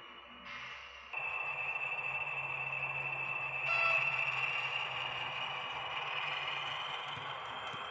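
H0-scale model train running on track: a steady, high motor whine that slowly rises in pitch over a low hum. It gets louder about a second in, and there is a brief, louder pitched sound just under four seconds in.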